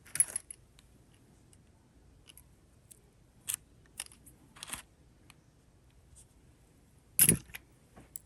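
Jewelry pieces being handled and set down: scattered short clicks and clinks of small metal and plastic items, loudest just after the start and again about seven seconds in.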